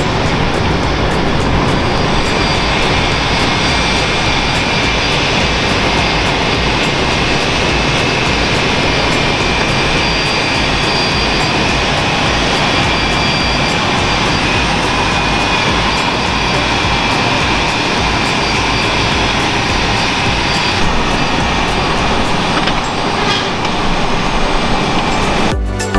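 Fendt 724 Vario tractor running steadily under load, pulling a combination seed drill across a field: a constant engine drone with driveline and implement noise.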